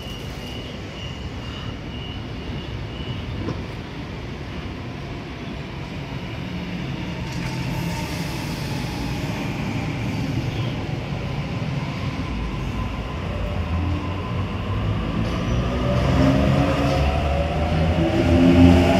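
Electric suburban train running on the rails and growing steadily louder, its low rumble building, with a rising motor whine in the last few seconds. A faint, evenly pulsed high beeping sounds over the first few seconds.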